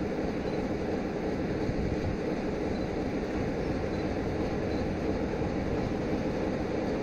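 Distant 060-EA electric locomotive approaching with a passenger train: a steady, even rumble with no distinct events.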